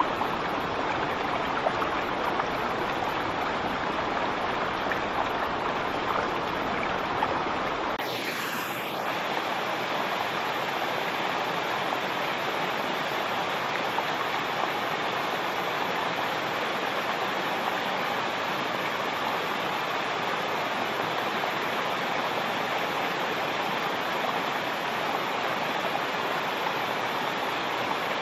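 Waterfall: a steady, dense rush of falling water. About eight seconds in the sound shifts and loses most of its deep low rumble, then runs on evenly.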